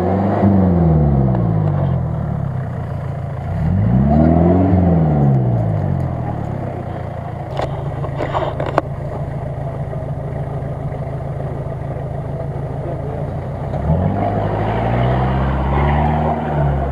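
A Jeep-style off-road 4x4's engine revving hard in three rising-and-falling surges, with a steadier drone between, as the vehicle strains under load through a deep mud-and-water hole and climbs out. A few brief knocks come near the middle.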